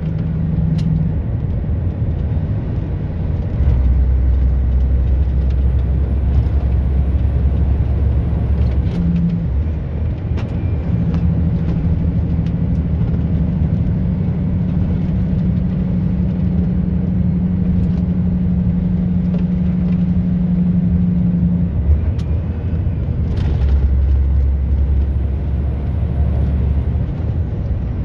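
Vehicle driving along a road: steady engine and tyre noise, with a low drone that drops out and returns several times.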